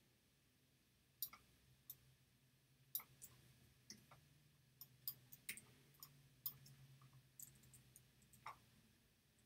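Faint, irregular clicking of computer input devices during digital editing, some fifteen to twenty clicks unevenly spaced, over a faint low hum.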